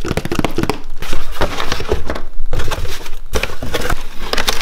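A cardboard shipping box being torn open by hand: packing tape and cardboard flaps ripping and crackling in a rapid, irregular run, with plastic wrap rustling near the end.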